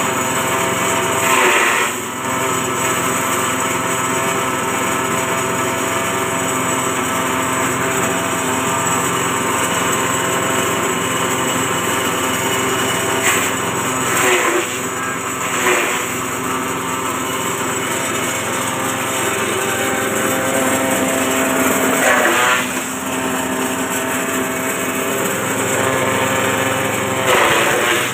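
Multy JG30 forage chopper driven by its small engine, running steadily at speed. A few times there is a short surge of harsher, louder noise as bundles of grass stalks are fed in and cut.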